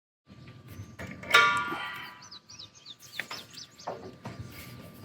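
Adjustable wrench clanking against a propane tank's hose fitting about a second in, with a short metallic ring that fades, then a few lighter metal clicks as the tight fitting is worked loose. Small birds chirp briefly in the background.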